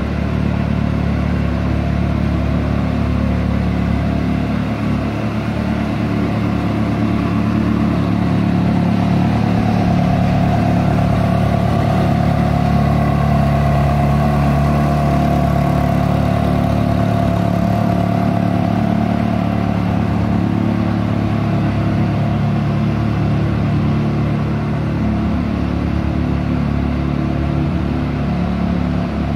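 Ferrari 360 Spider's 3.6-litre V8 idling steadily.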